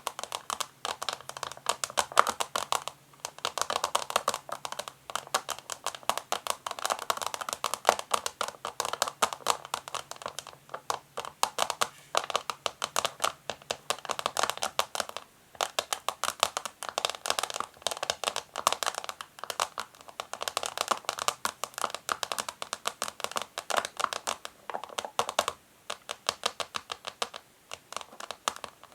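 Natural fingernails tapping, scratching and crinkling a tiny plastic bag wrapped around a lens container: a dense, continuous run of quick crinkles and clicks, with a few brief pauses.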